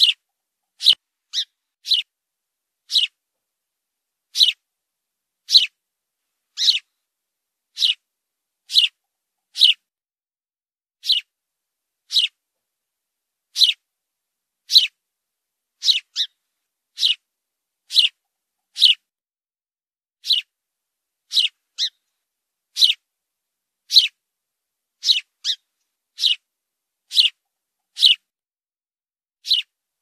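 House sparrow chirping: single short, high chirps, about one a second at an uneven pace, each dropping slightly in pitch.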